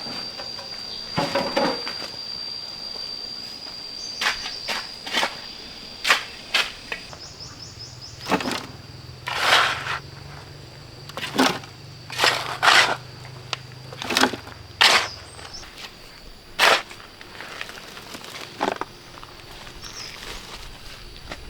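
A series of irregular knocks or strikes, about fifteen in all, over a steady high-pitched whine.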